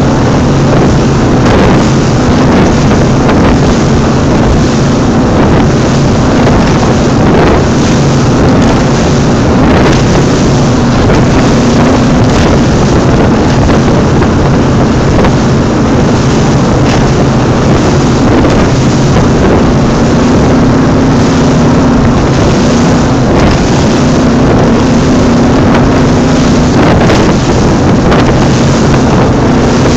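Cigarette-type offshore powerboat running steadily at high speed, its engine a constant loud hum, with wind buffeting the microphone.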